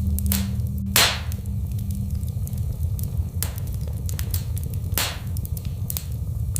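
Fireplace fire crackling: a steady low rumble of burning wood with scattered sharp pops and snaps, the loudest about a second in.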